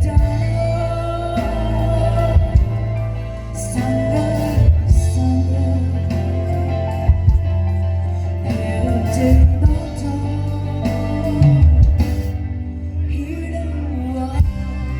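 Live band playing a song, with singing over electric guitar, a steady bass line and drums.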